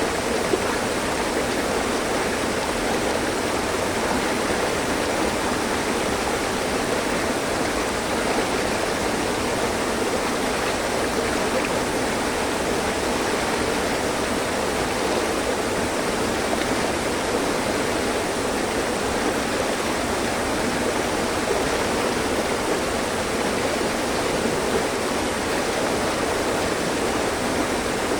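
Mountain stream flowing over rocks: a steady, even rush of running water with no breaks.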